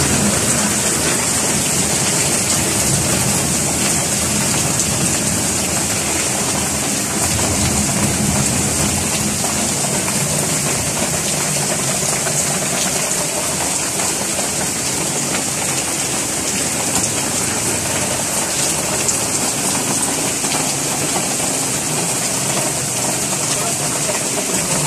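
Heavy rain pouring down in a steady, unbroken hiss.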